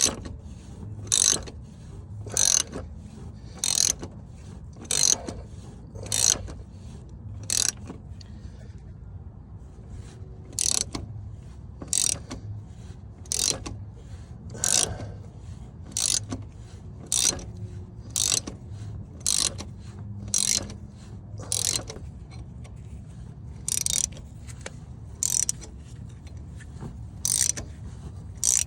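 Socket ratchet wrench clicking in short runs, about once a second, as it turns the forcing bolt of a harmonic balancer puller, drawing the crank hub off the LT1 crankshaft; a steady low hum runs beneath.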